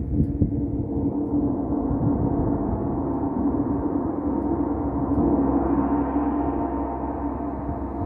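Large hanging gong played with repeated soft mallet strokes, building a sustained shimmering wash of ringing that swells to its loudest about five to six seconds in, then eases slightly.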